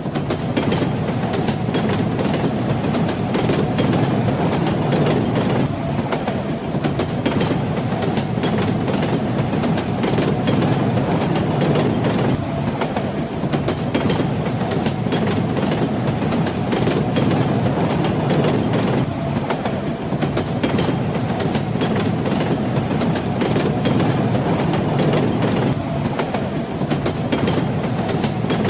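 Train wheels rolling on the rails: a steady, heavy rumble with many sharp clicks scattered throughout.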